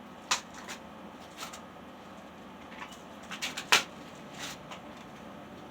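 Hands handling objects at close range: a scattering of light clicks and knocks, with a small cluster and the loudest knock about three and three-quarter seconds in.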